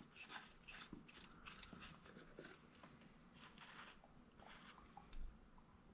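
Faint crackling and clicking of hands working the plastic oil filter housing cap, with the cartridge filter attached, loose from its housing. There is one sharper click about five seconds in.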